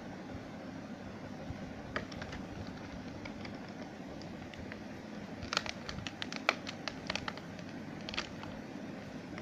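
Scattered light clicks and taps, with a quick run of them a little past halfway, over a steady background hiss: a small 1/64 scale model truck and its packaging being handled during unboxing.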